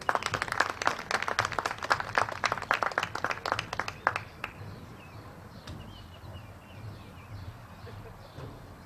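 Applause, lots of hands clapping for about four and a half seconds, then stopping.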